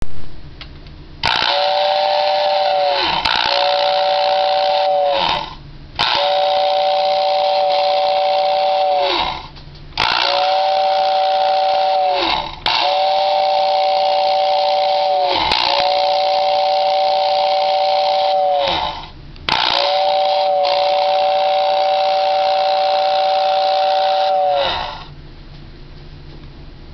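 Lionel 6466W model train whistle tender blowing its motor-driven two-tone whistle, seven blasts in a row with short breaks, each an airy hiss with two steady notes that sag in pitch as the fan motor winds down at the end of the blast. The whistle is working properly.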